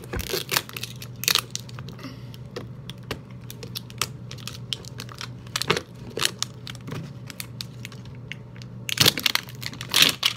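Plastic wrapping on a toy surprise ball crinkling and tearing as its layers are peeled off by hand, in short irregular crackles that come thickest near the end.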